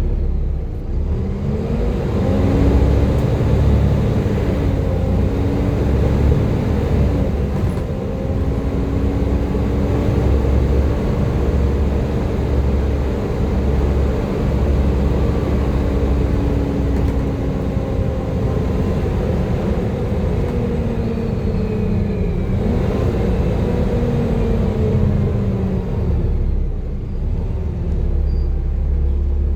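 Volvo B7TL double-decker bus's six-cylinder diesel engine working hard with its whining 'hoover' note. The pitch climbs in the first couple of seconds and holds steady, dips briefly about 22 seconds in, then falls away near the end, over a heavy low rumble.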